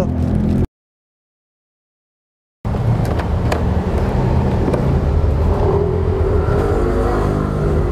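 A steady low engine drone, like a motor vehicle running nearby, broken by about two seconds of dead silence a little under a second in.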